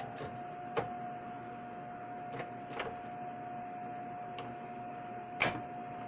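System fan being pressed into its mount in a Dell GX280 chassis: a few light clicks, then one sharp snap about five seconds in as it locks into place. A faint steady tone runs underneath.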